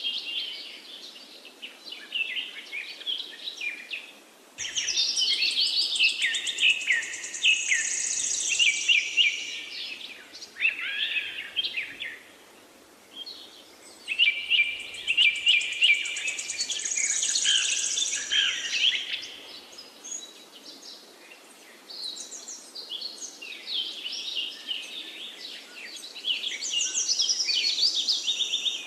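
Birds singing: many quick chirps and trilling phrases in bursts, with short lulls between them.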